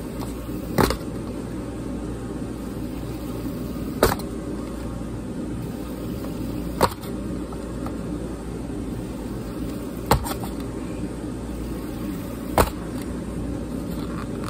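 Five sharp clicks or snaps, a few seconds apart, as a metal fidget spinner is worked against the rim of a styrofoam cup to break pieces off. A steady low hum runs underneath.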